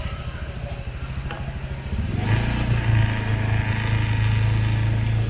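A motor vehicle engine idling, a steady low hum that gets louder about two seconds in and then holds at an even pitch.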